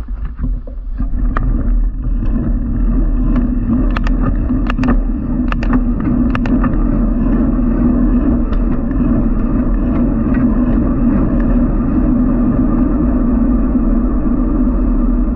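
Wind rushing over the microphone of a camera travelling along a street, with steady road rumble. A cluster of sharp rattling clicks comes about four to seven seconds in.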